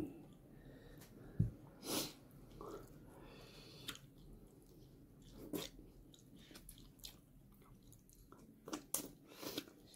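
Quiet, close chewing of rice and fish curry, with scattered wet mouth clicks and lip smacks and a short breathy sound about two seconds in.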